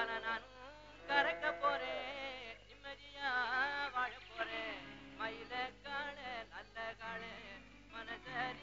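Background music: a song with a singing voice whose melody wavers and bends in pitch, over steady accompaniment.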